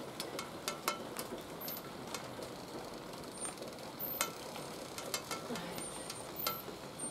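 Light rain falling, a steady hiss with scattered sharp ticks and drips.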